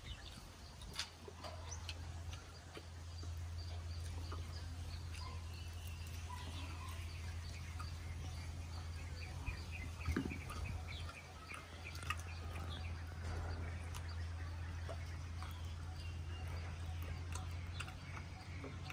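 Quiet eating: small clicks and chewing sounds while picking at seafood, over a steady low hum. Faint bird chirps come and go in the background.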